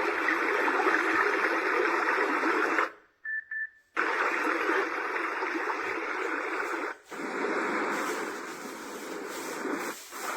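A baby white-noise plush toy's small speaker plays a steady hiss. It cuts out about three seconds in, two short beeps sound, then another noise sound starts and changes again about seven seconds in, as the toy steps through its soothing sounds.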